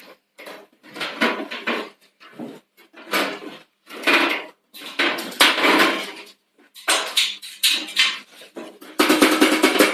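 Macaw knocking its beak on a metal box: bursts of rapid clattering taps with a tinny ring, coming in several clusters. Music comes in about nine seconds in.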